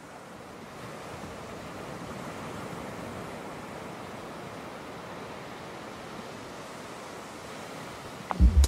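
Steady rushing wash of open water and wind. Near the end, deep bass thumps cut in as music starts.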